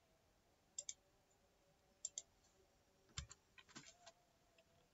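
Faint clicks from a computer's input devices, mostly in quick pairs about a second apart, then a short flurry of clicks near the end.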